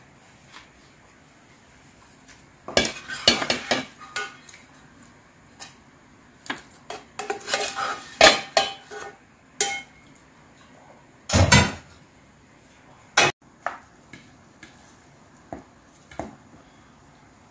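A long wooden spoon scraping a fried egg out of a nonstick frying pan and knocking against a stainless steel mixing bowl: a string of short scrapes and clinks, with a louder knock past the middle.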